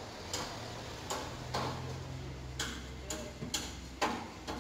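Footsteps clicking on a tiled floor, about two steps a second with one longer pause, over a low steady hum.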